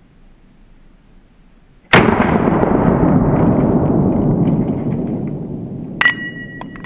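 A single .45 ACP shot from a Springfield 1911 pistol about two seconds in, followed by a long rolling tail that fades over several seconds. Near the end comes a short, sharp metallic ring.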